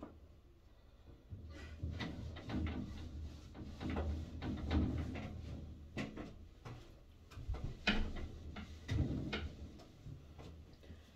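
Cloth wiping over a glass shower enclosure and its frame, rubbing irregularly, with the sliding panels knocking and rattling now and then.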